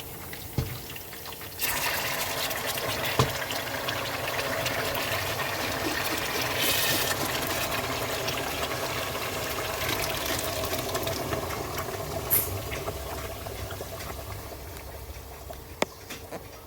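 Tomatoes tipped into hot oil in a stew pot, sizzling: the hiss starts suddenly about two seconds in, holds steady, then slowly dies down. A few light clicks of a utensil or pot sound over it.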